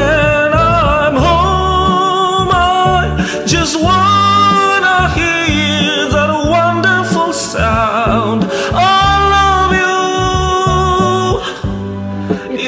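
Male voice singing long, wavering held notes over a karaoke backing track.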